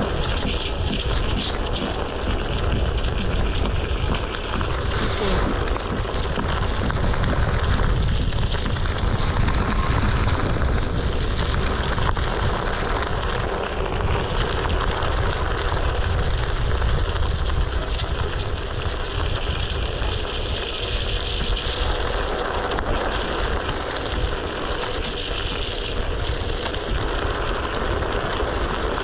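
Wind buffeting the microphone over the steady rolling noise of a one-wheeled board's tyre on wet gravel, with a heavy low rumble throughout.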